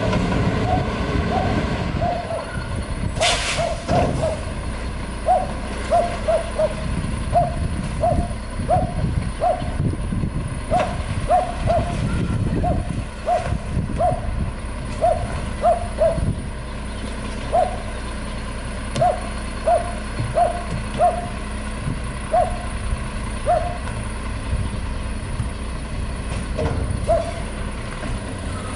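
Garbage truck diesel idling steadily while a dog barks over it again and again, in short runs of about one to two barks a second. About three seconds in there is a short, sharp hiss of air from the truck's air brakes.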